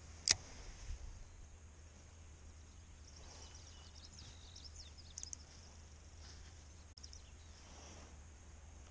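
Quiet outdoor ambience: faint high bird chirps about three to five seconds in over a low steady rumble, with a single sharp click just after the start.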